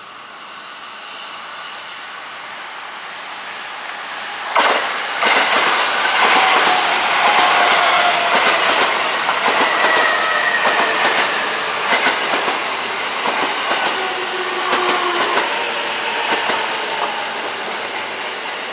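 Train passing close by: it builds up on approach, then about four and a half seconds in turns suddenly loud, with repeated wheel clacks over the rail joints and a slowly falling whine, easing off near the end.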